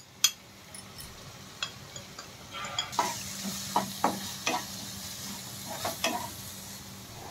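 Wooden spatula scraping and stirring ground spices into frying masala paste in a non-stick pan, in irregular strokes. A light sizzle of the masala frying comes in about three seconds in.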